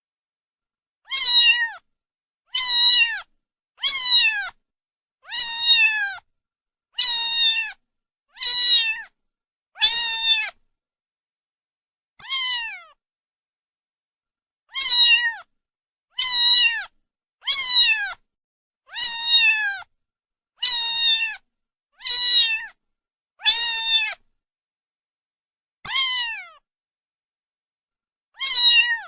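Cat meowing over and over: about sixteen short meows, each falling in pitch, mostly a second or so apart with a few longer pauses.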